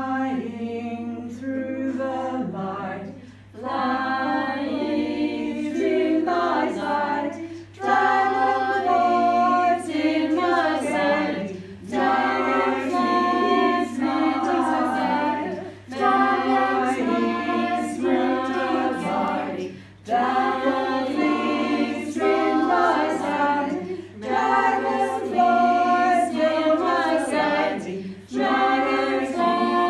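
A small group of voices singing an improvised a cappella song with no instruments. The phrases are about four seconds long, with short breaks between them.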